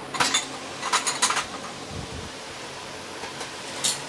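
Clinks and knocks of stainless steel kitchen bowls and utensils being handled: one just after the start, a quick run of them around a second in, and one more near the end, over steady background hiss.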